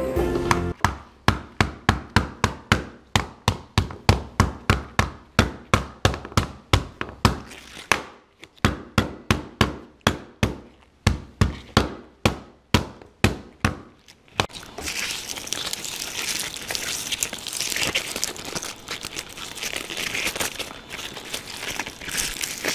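Metal meat mallet pounding lemongrass stalks on a plastic cutting board, about three blows a second with a short pause midway. The pounding stops about 14 seconds in, and the crushed lemongrass rustles and crackles as it is handled.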